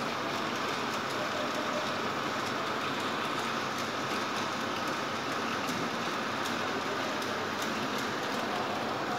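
Steady rushing background noise at an even level, with a few faint light clicks.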